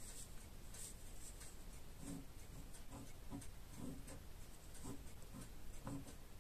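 Ballpoint pen scratching across paper in a run of short, irregular strokes as lines are drawn, faint at first and more frequent after about two seconds in.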